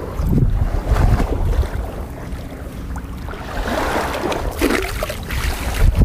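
Wind buffeting the microphone over small surf, with a weighted cast net splashing down onto shallow water about four seconds in.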